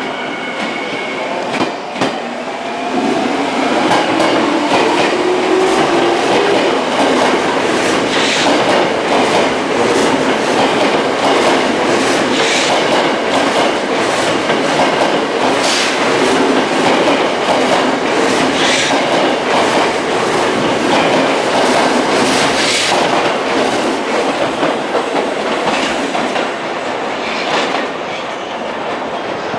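Tokyo Metro 05 series subway train running: a motor whine rises in pitch over the first few seconds as the train gathers speed, then a steady rumble with the clickety-clack of wheels over rail joints every few seconds. The sound eases off near the end.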